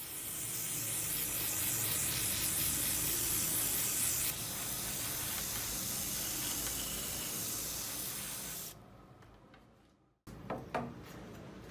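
WD-40 aerosol can spraying through its straw onto a rusty steel hatchet head: a steady hiss that eases slightly about four seconds in and stops sharply about three seconds before the end. A few faint ticks follow.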